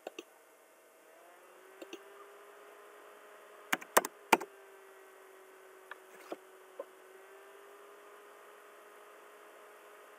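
Sharp clicks of a computer mouse picking points, about ten in all, the three loudest in quick succession about four seconds in, over a faint steady hum.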